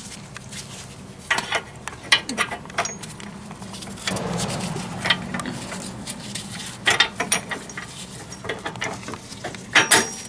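Irregular metallic clicks and taps as a washer and the new Inconel trailing arm bolt are handled and worked into place between the bushing and the trailing arm, with a stretch of rustling handling about four seconds in.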